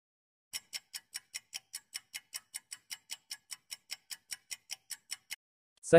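Countdown-timer ticking sound effect: fast, even clock-like ticks, about five a second, stopping just before the answer is read out.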